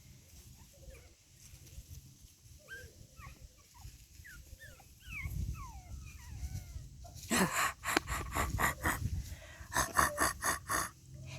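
Six-week-old pug puppies whimpering and whining in many short, high, falling cries. Partway through, two loud runs of rapid crackling rustles take over.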